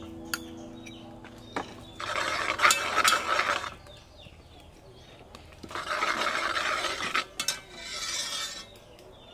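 Metal ladle scraping and stirring thick red paste and oil against the bottom of an aluminium pot. It comes in three bouts: about two seconds in, around six seconds, and near the end, with a few light clicks of the ladle on the pot between.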